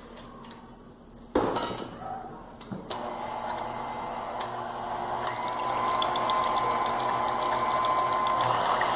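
KitchenAid Artisan stand mixer: a thump as the tilt head is lowered, then the motor runs with the wire whisk whipping cream in the steel bowl. It gets louder about five seconds in, with a steady whine over the whisking.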